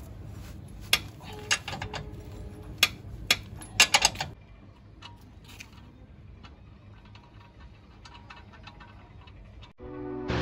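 Hand tools clinking and clanking on the steel front suspension of a Mahindra Bolero as a wrench works the parts: a run of sharp metallic knocks for about four seconds, then only faint, scattered light ticks.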